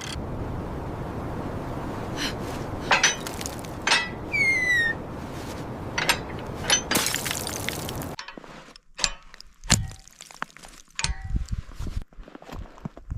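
Sharp clinks and knocks over a steady hiss, with a short falling whistle-like call about four seconds in. About eight seconds in the hiss stops abruptly, leaving quieter, scattered knocks.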